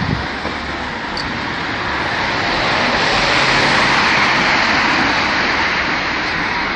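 Road traffic on the street alongside: a vehicle's tyre and engine noise swells to a peak about four seconds in, then fades.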